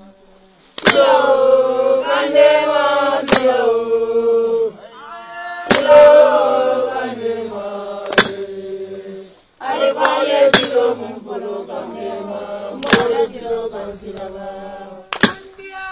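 A group of voices chanting a song in long, held phrases, with a sharp percussive strike about every two and a half seconds. The words ask to be shown the right path that the elders follow.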